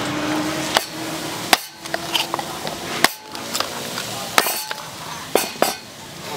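About six sharp, irregularly spaced knocks, like a hard tool striking a hard object, over faint background voices.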